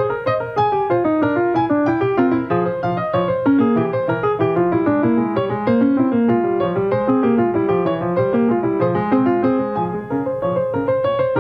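Piano music with quick running notes over a lower accompaniment.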